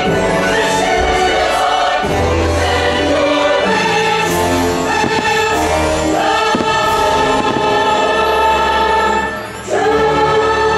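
Fireworks-show soundtrack: a choir singing long held chords over an orchestra, changing chord every second or two. The music dips briefly about nine and a half seconds in, then swells back.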